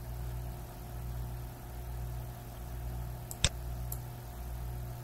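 A single sharp computer mouse click about three and a half seconds in, as the pointer clicks into a text field, over a steady low electrical hum.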